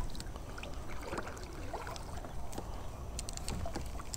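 Kayak moving off across the water: small splashes and drips with scattered light clicks and knocks, over a low rumble of wind.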